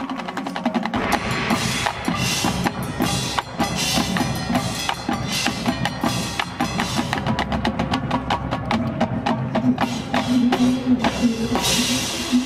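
Marching band playing, led by its percussion: dense, rapid drum strokes from snares, tenors and bass drums over a held low band note, with a bright noisy swell near the end.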